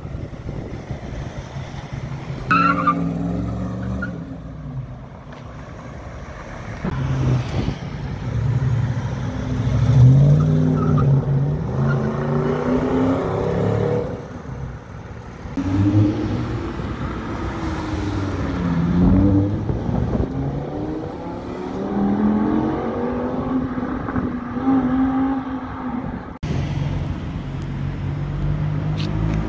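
Car engines revving and accelerating past one after another, their pitch rising and falling.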